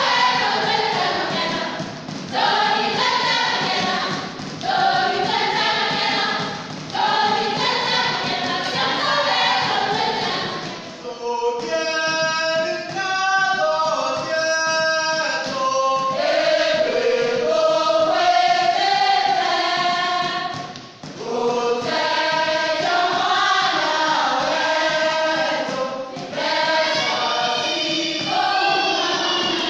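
A group of voices singing together in chorus, a traditional song for a Meru dance, in phrases with brief breaks between them. For a few seconds in the middle the voices thin out and sound clearer.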